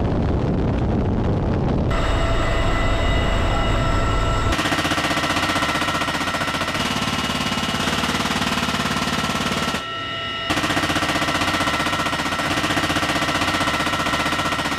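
CH-53E Super Stallion's rotor and turbine noise, a low rumble and then a steady whine. A GAU-21 .50-caliber machine gun then fires rapidly, dropping out briefly about ten seconds in and starting again.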